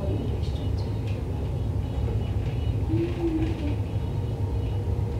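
Steady low background rumble, with faint light clicks and rustles as a plastic pot and artificial flower stems are handled.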